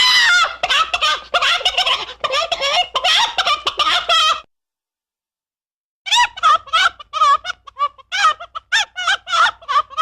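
Chicken clucking and squawking: quick, wavering, high-pitched calls in two runs of about four seconds each, with a gap of total silence of under two seconds between them.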